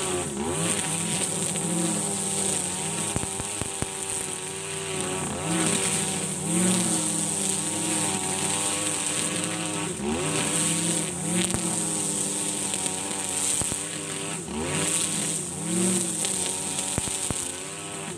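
Husqvarna 542RBS 42cc two-stroke backpack brush cutter running at full throttle on a 2.2 mm nylon line, cutting thick grass. Its engine pitch dips and recovers several times as the line loads up in the grass, over a steady high hiss.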